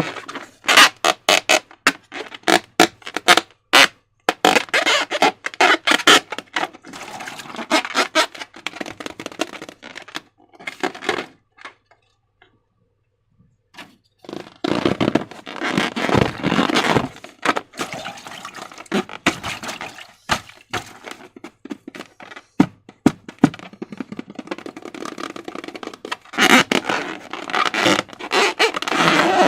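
Slime being squeezed and worked by hand, making rapid wet clicks, crackles and squelches. It stops for about three seconds midway, then starts again.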